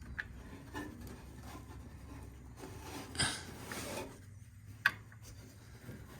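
Handling noises: scraping and rubbing, with a short rasp about three seconds in and a sharp click near five seconds, over a faint low hum.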